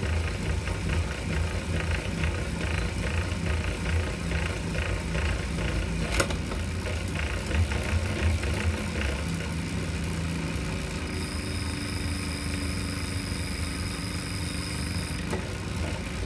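Wahoo KICKR V5 direct-drive smart bike trainer running, with a steady pulsing low rumble: the abnormal noise the owner is reporting as a fault. There is a sharp click about six seconds in, and a high-pitched whine from about eleven to fifteen seconds.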